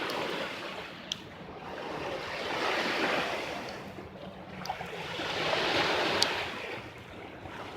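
Small waves washing onto the shore, the rush swelling and fading twice, with a few faint ticks.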